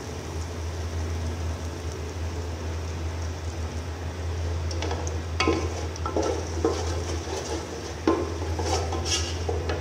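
Oil sizzling faintly in a metal cooking pot while a wooden spoon stirs and scrapes around it, with several distinct scraping strokes from about halfway through, over a steady low hum.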